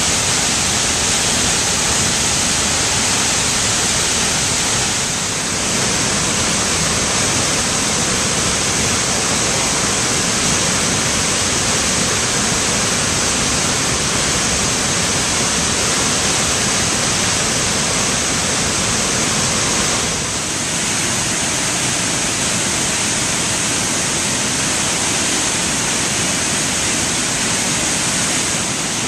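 Large waterfall, a heavy flow of water pouring over a wide rock ledge into the gorge below: a loud, steady rushing noise, dipping slightly twice.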